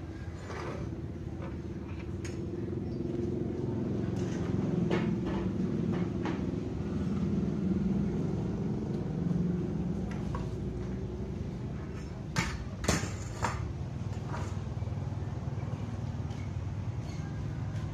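A wooden window sash set down on a tiled floor: a few sharp wooden knocks about twelve to thirteen seconds in. Under them runs a steady low mechanical drone.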